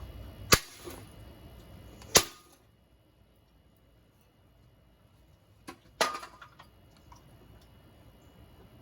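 Sharp, loud blows striking a ceiling fan's parts: two hard cracks about a second and a half apart, then after a pause a lighter knock and a third hard crack followed by a few small rattling clicks.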